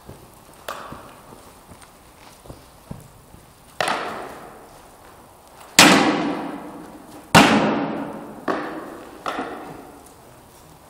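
Weapon blows striking round shields during Viking-style sparring: a few light knocks, then a sharp strike about four seconds in, two loud strikes around six and seven and a half seconds, and two lighter ones soon after, each echoing in a large hall.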